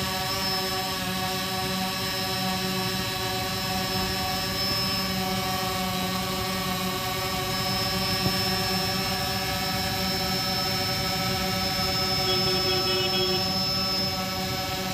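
A quadcopter drone hovering, its four propellers making a steady hum of several pitches held at once.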